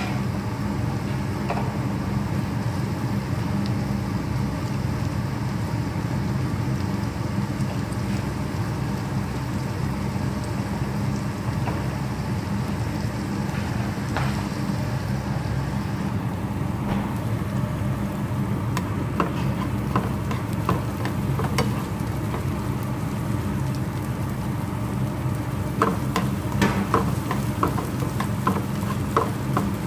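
Sliced onion and garlic sautéing in oil in a non-stick frying pan, crackling and sizzling more densely in the last few seconds, over a steady low hum.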